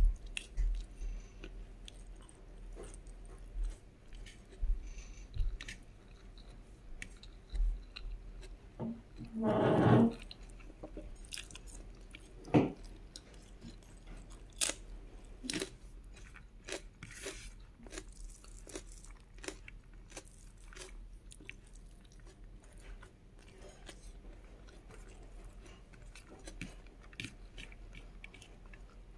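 Close-miked chewing and crunching of food, with many short wet mouth clicks and crackles and one louder, longer sound about ten seconds in.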